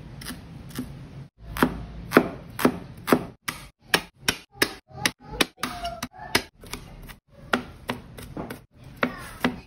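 Broad-bladed kitchen knife chopping ginger and garlic on a plastic cutting board: repeated sharp knocks of the blade on the board, two or three a second, with a few brief drop-outs between runs.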